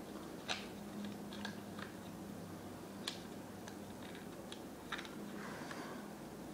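Faint, irregular small clicks and knocks from handling a cheap airsoft red dot sight as it is loosened and taken off the top rail of a Tippmann Project Salvo paintball marker.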